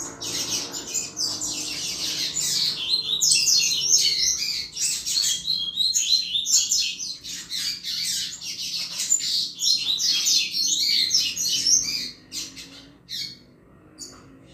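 Double-collared seedeater (coleiro) singing the 'chuva' song: a fast, unbroken run of high twittering notes that breaks off about twelve seconds in, with a few single notes after.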